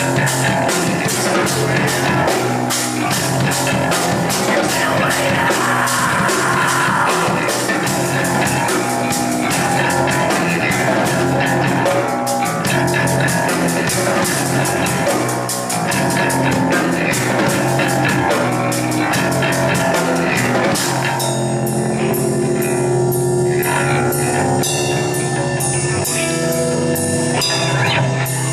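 Rock band playing live, with drum kit and guitar. About twenty seconds in, the dense cymbal wash thins out to a sparser passage with held low notes.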